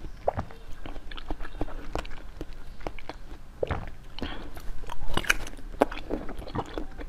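Close-miked biting and chewing of a translucent cube of food with round pale pieces set inside it. A run of sharp clicks, thickest and loudest about five seconds in.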